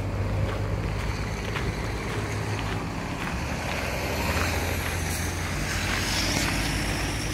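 Road traffic: a low steady engine hum with tyre and road noise, swelling in the second half as a vehicle passes.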